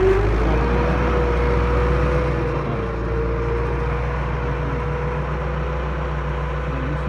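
Farm tractor engine running steadily while pulling a raised-bed former through the soil; a tone climbs in pitch in the first second, then holds steady.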